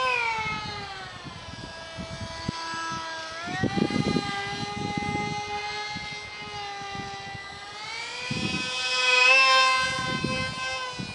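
Small electric motor of an ultra micro RC jet whining in flight. Its pitch slides down and back up several times as the throttle and the plane's distance change, and it is loudest about nine seconds in. Bursts of low rumble sit beneath it.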